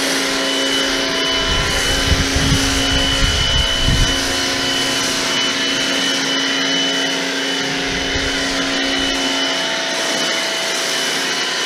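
Portland 1750 PSI electric pressure washer running steadily, its motor and pump holding an even whine over the hiss of a foam cannon spraying. A few brief low rumbles come between about two and four seconds in and again near eight seconds.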